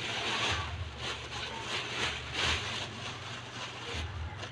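Thin plastic bag crinkling and rustling as it is handled, in irregular bursts that die down after about three seconds.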